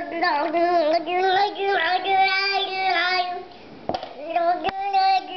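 A baby's sing-song vocalizing: a long, wavering high 'aah' held for about three and a half seconds, then a shorter one after a brief pause. A couple of sharp clicks fall in the gap.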